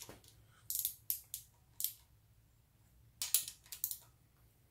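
Metal clicking and scraping of a wrench working the bolts of a piston stop as it is unbolted from the cast-iron deck of a Datsun L28 straight-six block, in two short clusters, about a second in and again past three seconds.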